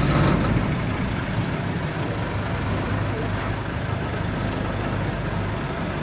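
Open-top safari jeep's engine idling steadily, heard from inside the vehicle.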